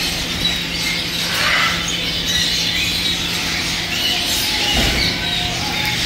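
Many caged birds chirping and squawking at once, cockatiels among them, over a steady low hum.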